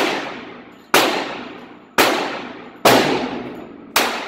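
Small .22 pistol fired five times, about one shot a second, each crack ringing off and fading in the echo of a concrete-walled indoor range.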